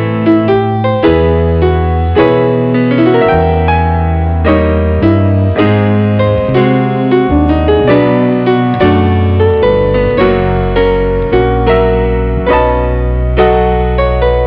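Background piano music: a keyboard melody of evenly paced notes over held low bass notes.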